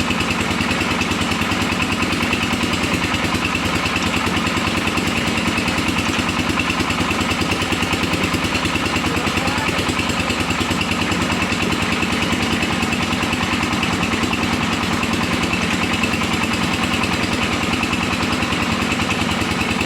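Engine of a brick-making machine running steadily with a fast, even throb.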